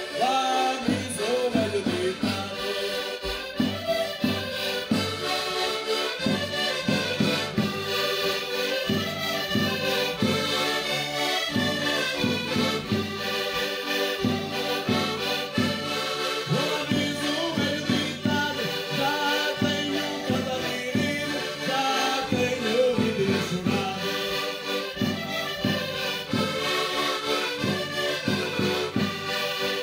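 Several Portuguese concertinas (diatonic button accordions) playing a traditional folk tune together, with a bass drum keeping a steady beat.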